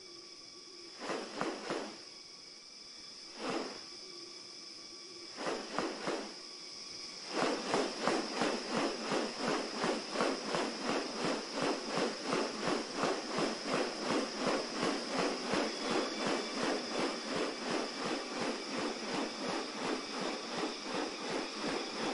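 Rainforest insects droning on one steady high note. Over it come a few separate rasping bursts, then from about seven seconds in a fast, even series of pulses, about two or three a second.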